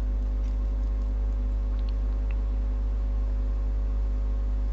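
Steady low electrical hum with faint hiss, and a few faint clicks about two seconds in.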